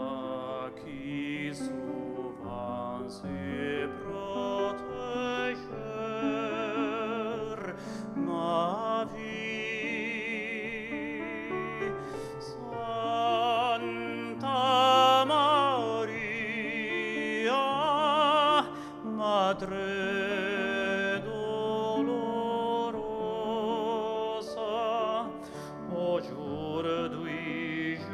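Tenor singing in operatic style with strong vibrato over instrumental accompaniment. The voice swells to its loudest about halfway through.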